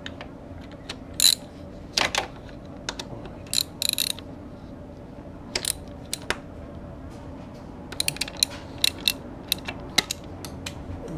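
Metal hand tool clicking and tapping against the oil and water pump parts under a 2010 Yamaha R1's engine as the pump is fitted: scattered sharp clicks, with a quick run of clicks about eight seconds in, over a steady low hum.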